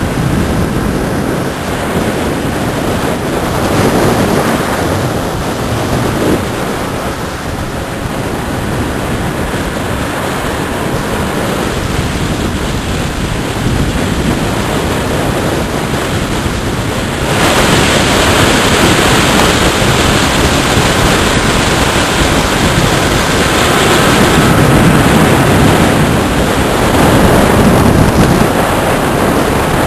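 Loud, steady rushing noise with no distinct tones, growing louder and brighter about 17 seconds in.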